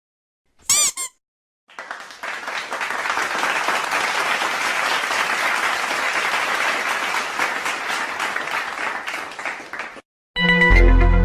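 A short squeak with a wavering pitch, then a crowd applauding for about eight seconds. Near the end a loud sound of steady tones with a deep low note begins.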